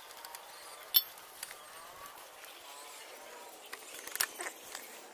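Metal hand tool clinking against a scooter's rear shock mounting bolt while the stock shock is being unbolted: one sharp clink about a second in and a cluster of lighter clicks near the end.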